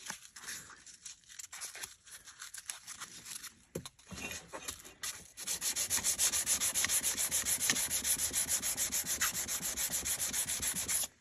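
400-grit sandpaper held in the hand and scrubbed back and forth on a steel cleaver blade. Light, uneven strokes at first, then from about five seconds in a fast, steady rhythm of several strokes a second, which cuts off suddenly near the end.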